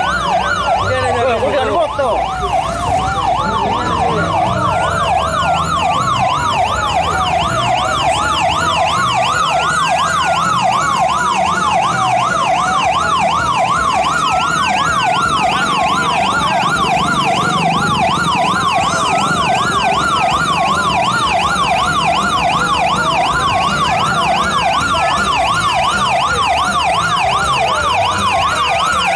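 Several electronic sirens sounding at once: one a slow wail rising and falling about every five seconds, the others fast yelps, over a low rumble. Sirens like these are used on escort motorcycles leading a procession.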